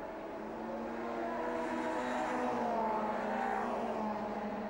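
Several touring-car racing engines running hard down a straight, their notes held steady and then dropping slightly in pitch in the second half.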